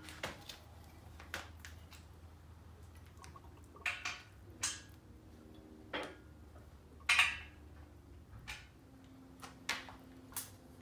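Scattered metallic clinks and knocks of hand tools and parts against a stripped V6 engine block during teardown, about ten in all with the loudest about seven seconds in, over a low steady hum.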